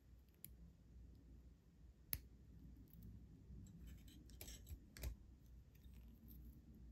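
Near silence broken by a few faint small metal clicks as a metal chain is slipped onto the opened wire loop of an eye pin. The sharpest click comes about two seconds in, with a small cluster a little past the middle.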